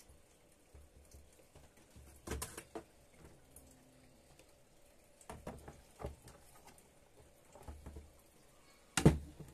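Handling clatter from the cooktop's glass top panel and plastic housing as it is lifted and tilted off: scattered clicks and taps, with the loudest knock near the end.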